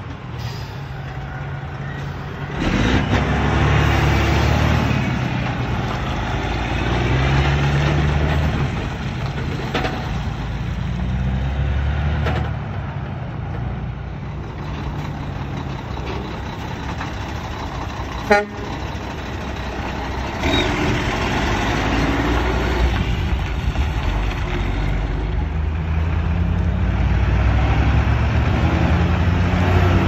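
Heavy diesel trucks passing close by one after another: a semi pulling a dump trailer, a dump truck, then a concrete mixer truck, their engines running under load and changing pitch as they pull through and shift. A single sharp knock comes about eighteen seconds in.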